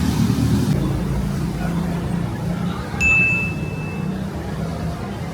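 City street traffic running with a steady low engine hum, and a single clear ding about three seconds in that rings for about a second and fades.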